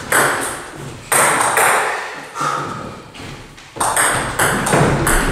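Table tennis ball clicking off bats and the table in a rally, each hit ringing on briefly in the hall. A few hits come about a second apart, then a quick run of hits about three a second from about four seconds in.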